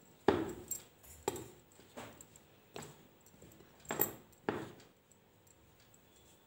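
A hand mixing flour in a bowl, with about six irregular knocks and clinks as the fingers and bangles strike the bowl, the last of them near the middle.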